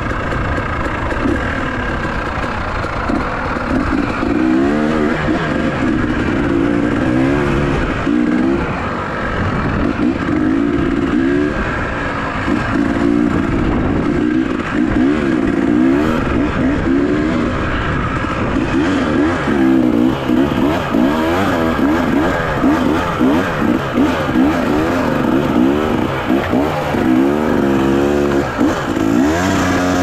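Enduro dirt bike engine under way on a trail, the revs rising and falling again and again with throttle and gear changes, most often in the second half.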